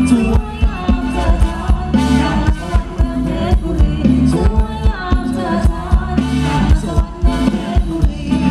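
Thai ramwong dance music from a band, with singing over a steady beat.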